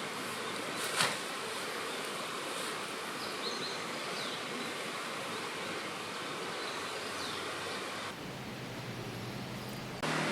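Steady outdoor background noise with a sharp click about a second in. The background changes abruptly about eight seconds in.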